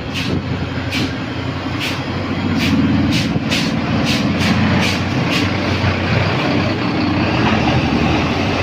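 A tour bus's diesel engine running close by, a steady low rumble that grows louder about three seconds in and holds. About a dozen short sharp clicks come over it in the first five seconds.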